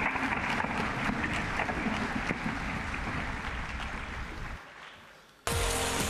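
A steady rushing noise with scattered clicks fades away over the last second and a half. Then, about five and a half seconds in, music starts abruptly over a held tone as the played video cuts to the next toy-train clip.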